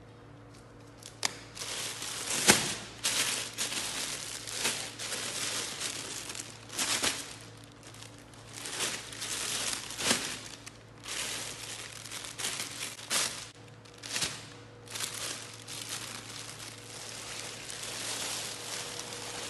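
Clear plastic polybag crinkling and rustling as it is handled and pulled open, in irregular bursts with a sharp crackle about two and a half seconds in.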